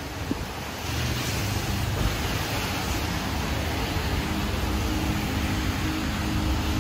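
A steady rushing noise, with soft held music notes coming in from about a second in and swelling in the second half.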